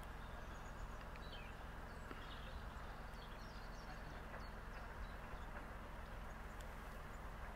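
Narrowboat engine idling as a faint, steady low hum, with birds chirping now and then.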